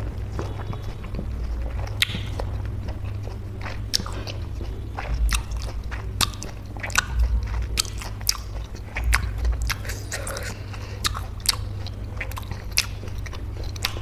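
Close-miked chewing of a juicy peeled orange: irregular wet mouth clicks and smacks, coming more often in the second half.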